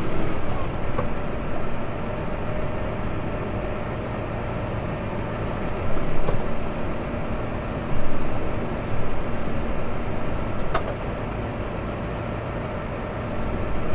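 Tractor engine running steadily, heard from inside the cab while the front loader is worked by joystick. It gets louder for a moment about six and again about eight seconds in, and there is one sharp click near eleven seconds.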